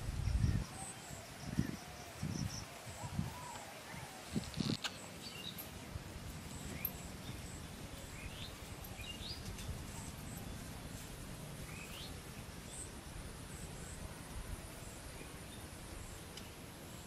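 Rural outdoor ambience: birds chirping briefly now and then over a faint steady insect hum, with a few soft low thumps in the first few seconds.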